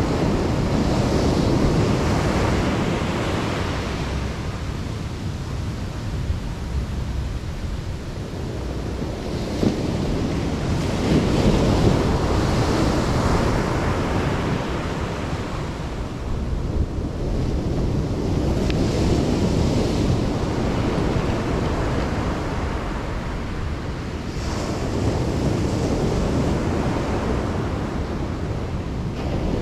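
Ocean surf washing onto the beach, a steady rush that swells and fades as each wave breaks every several seconds, with wind rumbling on the microphone.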